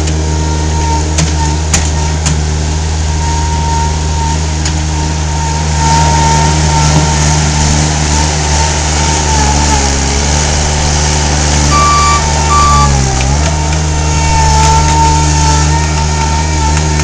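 Mini skid steer engine running steadily with a wavering whine over it. The engine's pitch dips briefly about thirteen seconds in, then recovers. Two short beeps sound just before the dip, with scattered knocks throughout.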